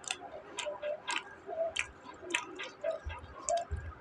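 A person chewing crunchy fried onion pakodas with the mouth closed: a crisp crunch roughly twice a second, with two low thumps about three seconds in.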